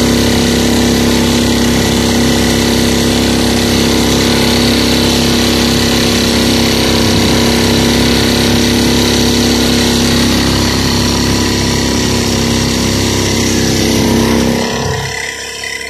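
Parsun 2.5 hp outboard motor running steadily at cruising speed, with the rush and splash of the wake behind the boat. Near the end the engine sound drops off sharply.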